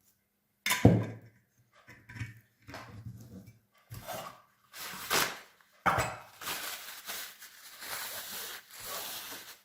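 A glass jar and an oil bottle are handled, with a sharp knock about a second in and several shorter knocks. Near the end there is a longer stretch of oil being poured into the jar of herbs.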